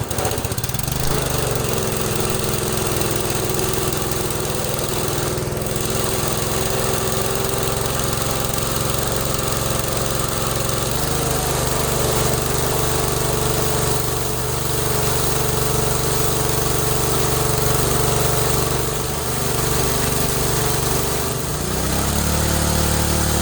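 Water blaster (pressure washer) running steadily: an engine-like drone with the hiss of the spray over it, the tone shifting slightly near the end.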